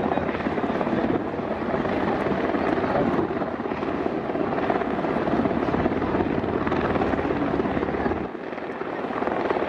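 A formation of helicopters, among them Sikorsky S-70 Black Hawks, flying past with a steady, dense rotor chop. The sound dips briefly near the end, then comes back.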